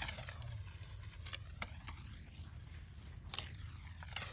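Wood fire under a wok crackling, with a few sharp, irregular snaps over a low steady rumble.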